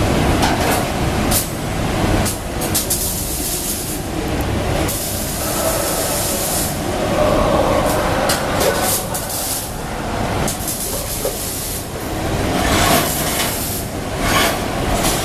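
Electric welding arc crackling and hissing in repeated bursts of a second or two with short breaks between them, over a steady low rumble.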